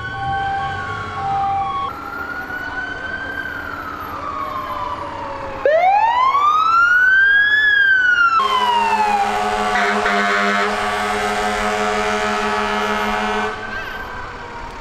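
Fire engine sirens wailing, rising and falling. About halfway a louder siren winds up and slowly falls, joined by a long steady blast of several tones at once from an air horn, about five seconds long, which stops sharply.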